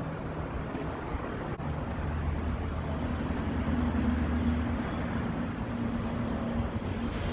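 Steady low mechanical hum over a constant background rumble, with a few low drone tones that fade in and out, like an engine or machinery running nearby.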